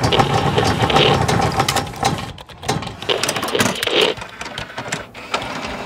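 Sound effects of an animated logo intro: dense mechanical clicking and ratcheting, with a louder flurry about a second in and again about four seconds in.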